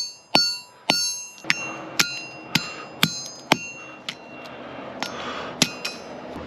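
Hammer blows on metal while salvaging parts from a microwave, each with a short bright metallic ring. About two heavy strikes a second for the first few seconds, then lighter, more irregular taps.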